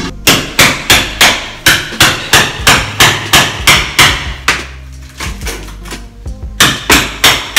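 Hammer blows chipping old ceramic wall tile off a bathroom wall, about three sharp strikes a second. The strikes ease off about four and a half seconds in, then start again near the end.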